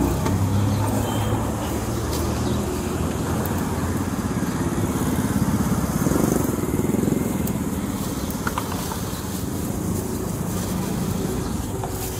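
Street traffic with motorbike engines running past, one passing louder about six seconds in.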